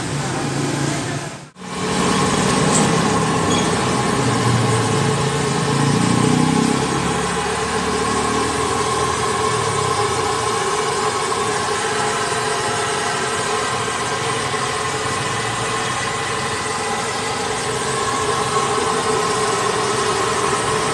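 A motor vehicle engine idling steadily, with a deeper wavering rumble for several seconds. The sound drops out briefly about a second and a half in, then carries on unchanged.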